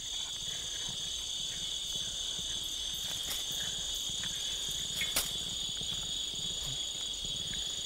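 Steady, high-pitched chorus of insects such as crickets in tropical forest, with a single sharp click about five seconds in.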